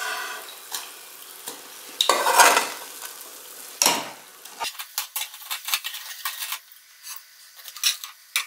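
Lentil fritters (vadas) sizzling in hot oil in a steel pan while a wire mesh skimmer scrapes and clinks against it, with a louder burst of sizzle and scraping about two seconds in. From about five seconds on come quick light clicks and taps of the metal skimmer.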